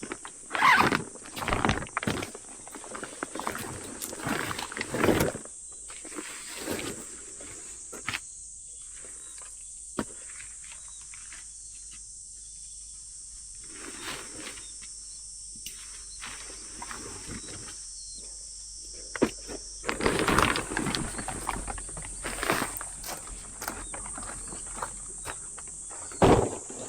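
A steady, high-pitched chorus of insects, typical of crickets. Irregular rustling and knocking, like gear being handled or footsteps, comes over it at the start and again in the last several seconds.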